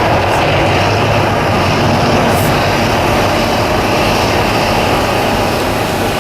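The eruption effects of the Mirage volcano attraction: a loud, steady rumbling roar with a low hum underneath.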